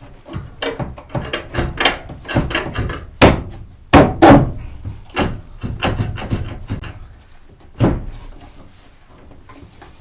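Clattering knocks and thunks as a part is slid and knocked back into place. The loudest knocks come a little over three seconds in and twice around four seconds in, with one more near eight seconds.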